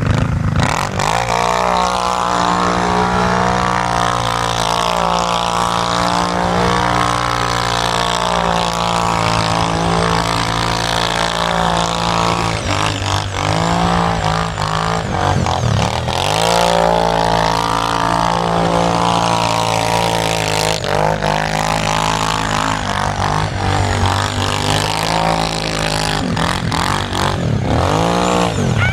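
Sport quad ATV engine revving up and down as the quad spins donuts and runs across snowy dirt. The pitch keeps rising and falling, with several sharp drops in engine speed.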